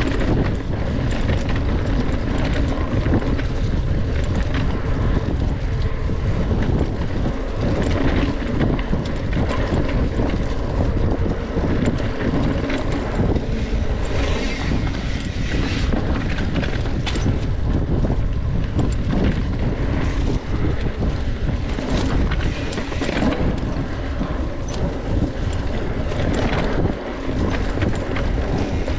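Wind rushing over the microphone of a mountain bike being ridden fast on a dirt trail, with frequent rattles and knocks from the bike over rough ground.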